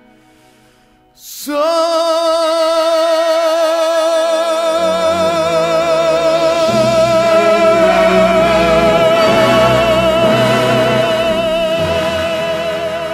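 Background music: after a quiet second and a half, a singer holds one long note with vibrato over instrumental accompaniment, with lower bass parts joining about five seconds in.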